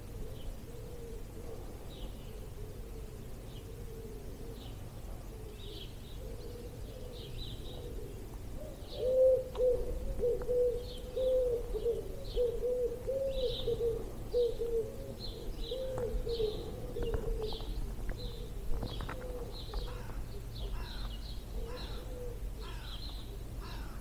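Dawn chorus: small songbirds calling in short high chirps throughout, with a pigeon cooing in a run of low, repeated notes from about nine seconds in until about seventeen seconds. A low rumble of wind on the microphone lies underneath.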